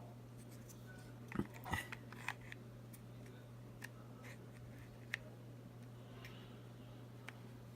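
Small clicks and taps of a Streamlight TLR-6 weapon light's plastic housing being handled and pressed together around its battery on a pistol frame: a quick cluster of clicks about one and a half to two and a half seconds in, then a few single clicks. A steady low hum runs underneath.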